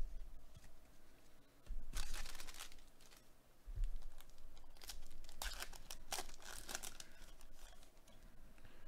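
A 2021 Panini Select baseball card pack's wrapper being torn open and crinkled by gloved hands, in short bursts of tearing and crackling, the busiest stretch a little past the middle.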